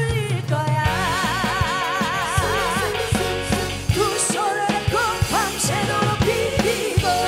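A woman sings an upbeat Korean trot song into a microphone, holding one long note with a wide vibrato, over a band with a steady drum beat.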